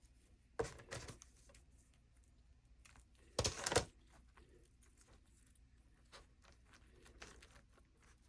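Hands placing flowers into a flower press: small clicks, taps and rustles, with a louder brief rustle about three and a half seconds in.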